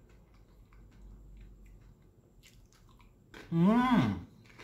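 Someone chewing crisp baked flour tortilla and filling, with faint crunches. About three and a half seconds in comes a short hummed "mmm", rising then falling in pitch, the loudest sound here.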